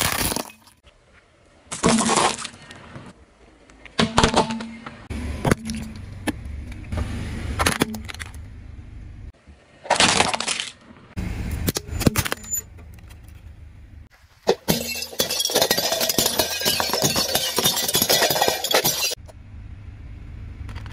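A car tyre rolling over and crushing objects, plastic among them. Short loud cracks and snaps come every couple of seconds, then a long run of dense crackling and splintering over the last third.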